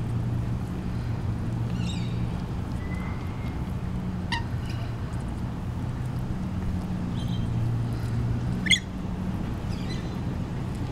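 Rainbow lorikeets giving a handful of short, sharp, high chirps and screeches, the loudest about nine seconds in, over a steady low hum.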